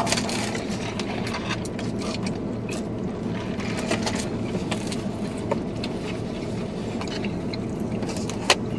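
Steady low hum inside a car cabin, with light clicks and scrapes of plastic takeout bowls, a cup and a fork being handled while eating, and one sharp click near the end.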